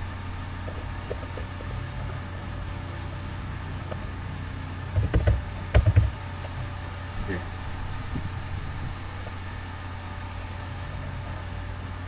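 Steady low hum of background noise, with a short cluster of loud taps about five to six seconds in from typing on a computer keyboard, and a few fainter clicks a little later.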